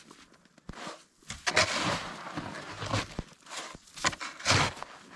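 Snow shovel scooping and scraping deep snow off a buried table, in several short strokes about a second apart.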